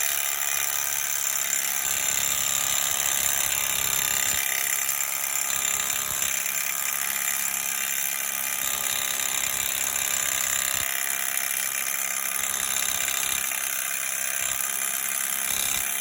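A 1/4-inch hex impact driver hammering steadily without a break, running a lug nut down over stacked washers to pull a new wheel stud into the hub.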